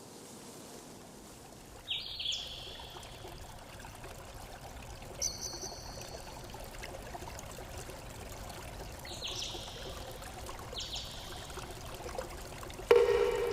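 Liquid pouring steadily, with several short ringing clinks like a utensil against a container; the loudest clink comes near the end.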